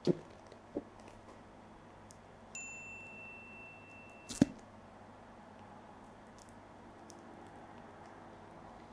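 Stiletto heels on a hard floor while a peeled banana is pressed flat under one shoe: a few sharp heel knocks, the loudest a little over four seconds in. A short high chime rings for about two seconds, starting about two and a half seconds in.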